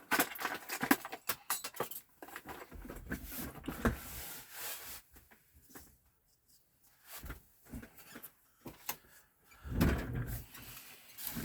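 A screwdriver working at small screws in a Tandy 2000 computer case: irregular clicks, scrapes and knocks of the tool and the handled case. It goes quiet for a moment about six seconds in, and there are louder knocks near the end.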